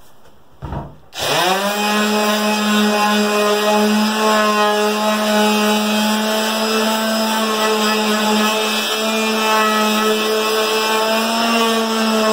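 Electric palm sander switched on about a second in, after a short knock: it spins up quickly, then runs with a steady, loud hum while sanding a small piece of wood.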